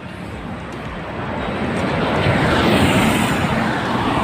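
A motor vehicle passing close by on the road: its noise swells to a peak about three seconds in and then fades.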